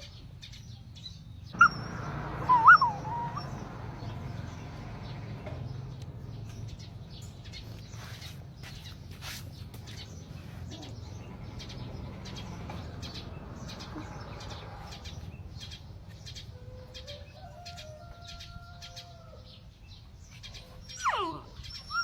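A puppy whimpering: short high squeals about two seconds in and a quick falling whimper near the end, over faint chirping and a low steady rumble.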